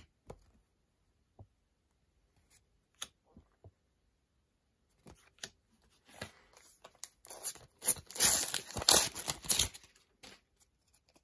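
Paper stickers rustling and crinkling against each other as a stack is handled, loudest and densest for a couple of seconds in the second half, after a few soft taps and clicks.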